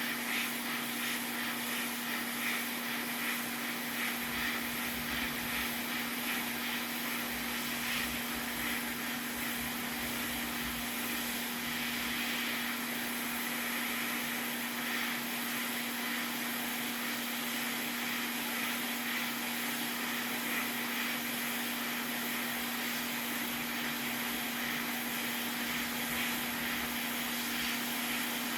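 Hot air rework station blowing steadily, heating the solder joints of a PS5 HDMI port to desolder it, with a constant low hum under the airflow.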